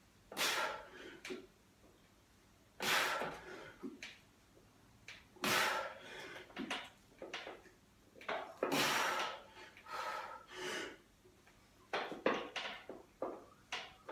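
A weightlifter's forceful, hissing breaths, one hard burst with each rep of a heavy incline dumbbell press. They come about every three seconds at first, then shorter and closer together in the last few seconds as the set gets harder.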